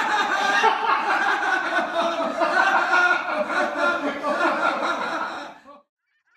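Men laughing together, a long unbroken stretch of laughter that stops about five and a half seconds in.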